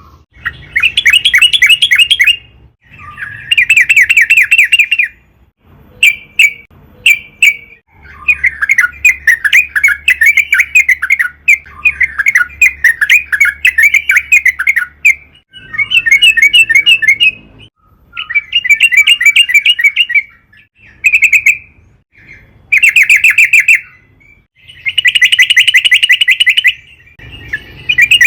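Yellow-vented bulbul (trucukan) singing loudly: rapid bubbling phrases of quickly repeated notes, each phrase a second or two long with short pauses between. About eight seconds in, one longer run goes on unbroken for several seconds.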